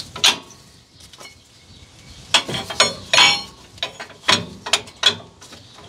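Metal tools and steel suspension parts knocking and clinking as the rear leaf spring shackles are refitted: a string of separate sharp clanks, the loudest ones bunched in the second half, one ringing briefly about three seconds in.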